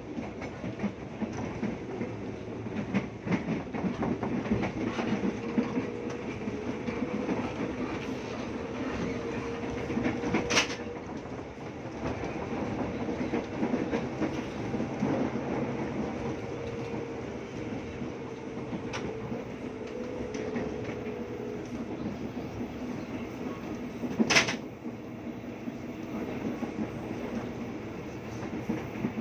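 KRL electric commuter train running on the rails: a steady rumble with wheel clatter and a faint hum that comes and goes, and two sharp, loud clacks about ten seconds and twenty-four seconds in.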